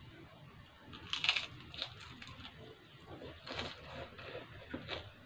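A woman chewing food close to the microphone while eating with her hands, with irregular crunches and wet mouth clicks. The loudest crunch comes a little over a second in.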